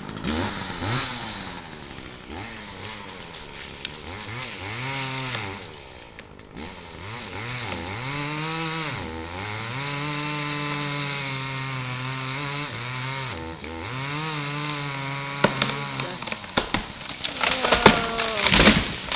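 Two-stroke chainsaw cutting through a tree trunk, its engine speed sagging under load and picking up again several times. A run of sharp cracks comes near the end.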